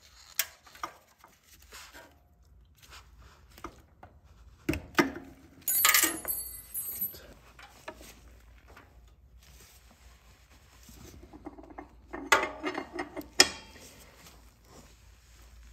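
Metal tool clinks and knocks as a combination wrench works the rear axle nut of a Harley-Davidson touring motorcycle. About six seconds in comes one loud clink with a high metallic ring lasting about a second, and about twelve seconds in a quick cluster of sharper knocks.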